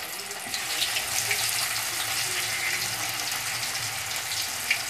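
Marinated fish pieces frying in hot mustard oil: a steady sizzling hiss with scattered crackles and pops, a little louder from about half a second in, with one sharper pop near the end.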